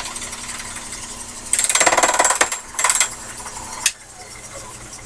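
Sherline mini lathe running while turning a workpiece between centers, with two loud, harsh bursts of the cutting tool biting into the metal about a second and a half in and again near three seconds. The noise drops away sharply about four seconds in.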